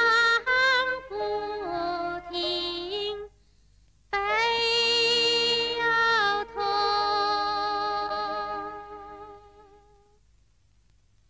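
A woman singing a Chinese mountain song (shan'ge) in long, wavering held notes. The phrase breaks off about three seconds in, a second phrase starts a second later, and it fades away near the end.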